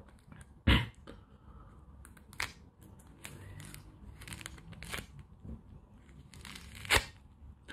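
Fruit being cut with a knife: soft crisp slicing and scattered small clicks, with two sharp knocks, one near the start and one near the end.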